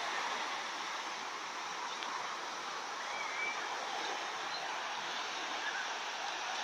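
Ocean surf breaking on a sandy beach: a steady rushing hiss of waves and foam.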